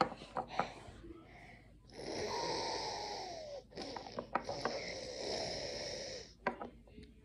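A child making two long, breathy pretend nose-blowing sounds with her mouth, each about two seconds, the pitch falling under the hiss. Light handling clicks come just before.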